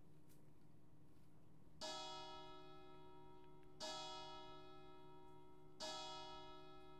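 A church bell tolling slowly: three strikes about two seconds apart, the first about two seconds in, each ringing on and fading. A faint steady low hum lies underneath.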